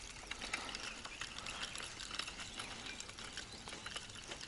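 Faint, irregular light clicks and taps.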